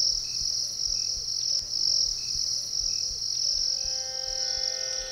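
Crickets trilling steadily, as a night ambience. Soft sustained music notes fade in beneath them about halfway through.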